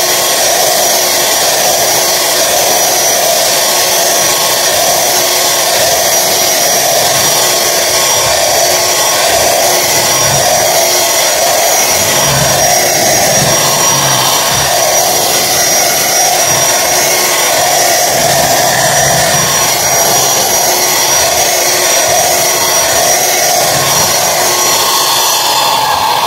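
Electric hand mixer running steadily at one speed, its beaters churning a thick fruit cake batter in a stainless steel bowl, with a steady high motor whine over the churning.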